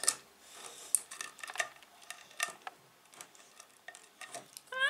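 A small child's hand scraping and knocking against the inside of a metal pot while digging out crumbly food, in scattered light clicks and scrapes. Just before the end a short rising voice syllable comes in.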